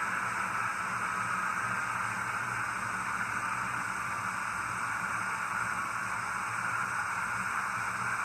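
Steady diesel locomotive sound from the LokSound decoder's small speaker in an HO scale ES44AH model: a low engine hum under a constant hiss, unchanging throughout.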